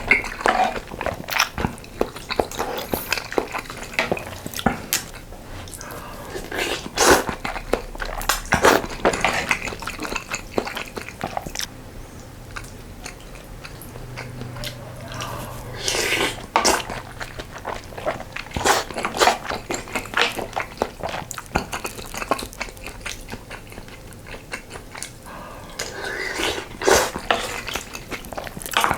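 Close-miked eating of spicy sausage stew with ramen noodles and rice: steady chewing and mouth clicks, with several louder, longer eating noises along the way.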